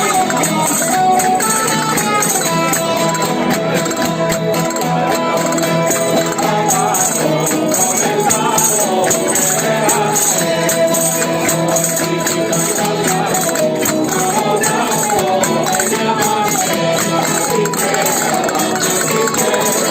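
Folk music: a melody of held notes over steady jingling percussion.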